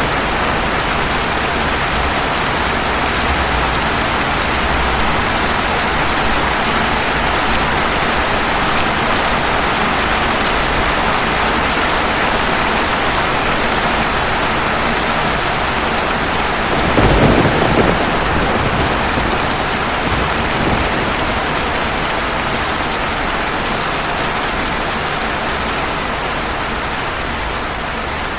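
Steady heavy rain, with a short burst of thunder a little after halfway and a fainter rumble just after it.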